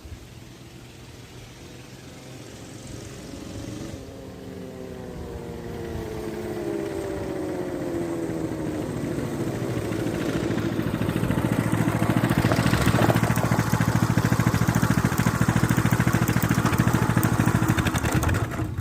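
Axis M200 mini bike's small single-cylinder engine running, growing louder as it comes closer, its pitch dropping as it slows. It runs loud and close for several seconds, then cuts off suddenly near the end.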